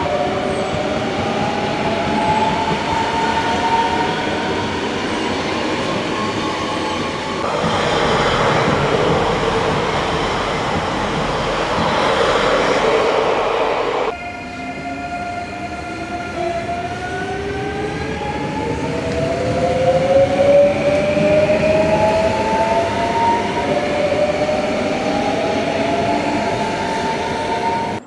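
Electric passenger trains: a double-deck electric multiple unit moving off, its traction motors giving a rising whine, then a louder rush of wheel and running noise. The sound cuts off abruptly about halfway through, and after a few seconds of steady tones another rising motor whine builds as a train accelerates.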